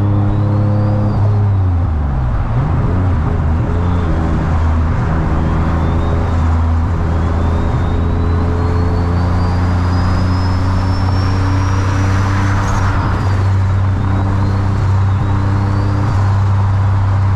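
Single-turbo VQ35DE V6 of an Infiniti G35 coupe, heard from inside the cabin, running steadily at freeway speed with road noise. The engine note drops briefly about two seconds in and then comes back. A faint high whistle climbs slowly through the middle and falls away after about thirteen seconds.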